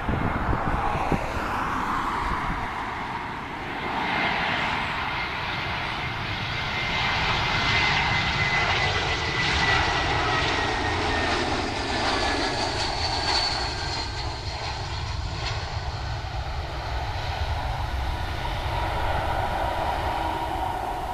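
Airbus A320-200 twin jet engines on final approach passing close overhead. A steady jet noise swells to its loudest in the middle, carrying a high whine that slowly falls in pitch as the airliner goes by, then eases as it descends to the runway.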